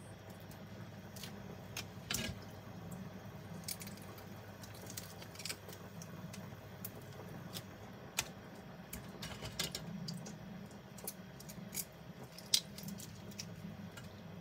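Raw shrimp being peeled and cleaned by hand over a stainless mesh colander: soft wet squishing with scattered small irregular clicks of shell, over a low steady hum.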